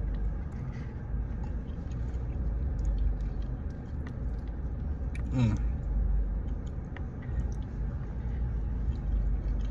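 A person chewing a mouthful of mac and cheese close to the microphone, with small wet clicks, over a steady low rumble. A short voiced sound comes about halfway through.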